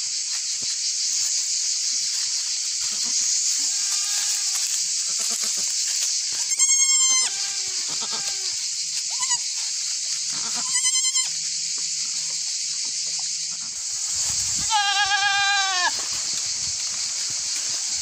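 Newborn miniature goat kids bleating: three loud, high, wavering bleats about a second long each, with a couple of fainter ones between, over a steady high-pitched hiss.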